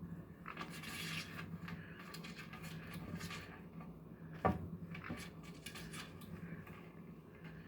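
Light rustling and scraping with scattered small clicks, one sharp knock about halfway through, over a faint steady low hum.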